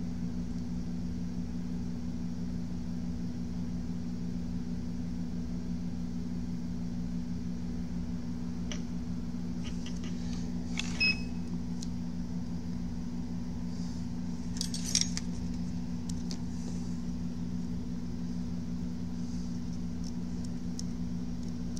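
Steady low electrical hum, with a few light clicks and taps of handling; a short high beep sounds once about eleven seconds in, and a quick cluster of clicks comes near fifteen seconds.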